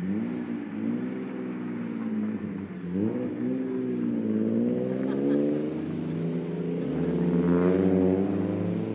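DAF XF 105 truck's six-cylinder diesel engine revving up and easing off several times, its pitch rising and falling with each surge.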